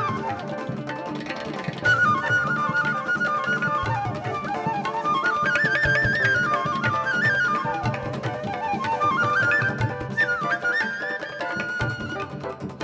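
Live Indian classical fusion music: a flute plays a melody full of slides and ornaments over hand-drum accompaniment.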